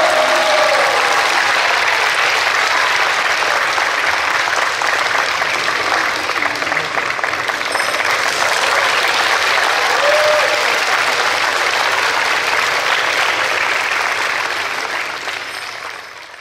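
Audience applauding, with the clapping fading away near the end.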